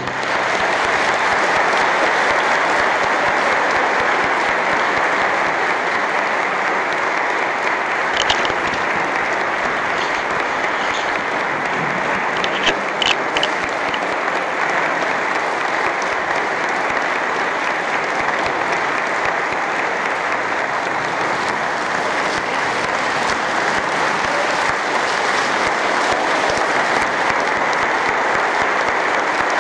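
Audience applauding: a long, steady round of clapping, with a few sharper clicks standing out near the middle.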